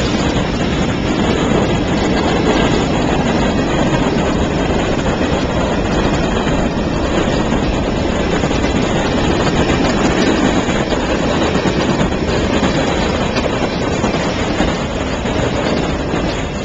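A CN freight train's cars rolling past close by, with a steady noise of steel wheels on rail.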